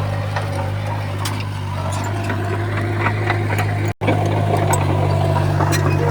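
Komatsu D31P bulldozer's diesel engine running steadily, with scattered light clanks and clicks over the low hum. The sound cuts out for an instant about four seconds in, then the engine carries on.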